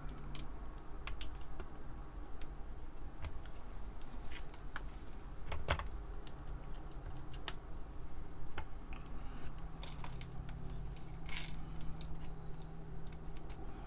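Irregular light clicks of small nuts with flat washers being picked up and snapped down into place on a circuit board, one louder click about halfway through.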